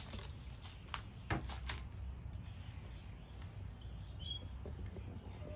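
Trigger spray bottle misting water onto plant leaves: a few short spritzes in the first couple of seconds, then only a faint low hum.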